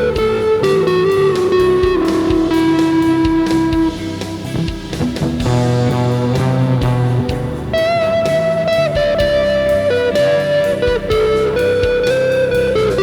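Electric guitar through effects pedals playing a slow improvised lead of long sustained, bending notes over an ambient rock backing track with drums. The playing eases off briefly about four seconds in.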